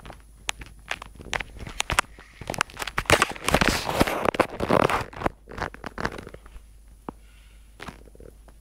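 Close rustling and crackling with many scattered clicks, densest and loudest in the middle: handling and movement noise right at the microphone.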